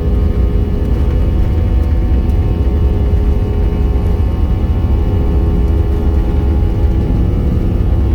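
Airplane engines running at takeoff power: a loud, steady, deep rumble with a few faint steady tones above it.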